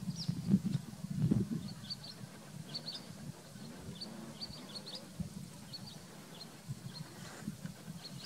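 Outdoor ambience of small birds chirping, with many short high chirps scattered throughout. There are low rumbles in the first second and a half, and fainter ones later.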